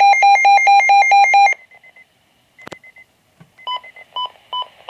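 Weather alert radio receiver's alarm beeping rapidly, about four beeps a second, sounding for a high wind warning, then cutting off about a second and a half in. After a single click, a few short, higher electronic beeps follow near the end.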